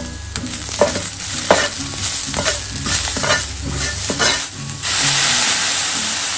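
Steel spoon stirring and scraping diced vegetables and dry spices around a hot kadhai, over steady frying sizzle. The spoon scrapes the pan about once a second, and the sizzle grows louder about five seconds in.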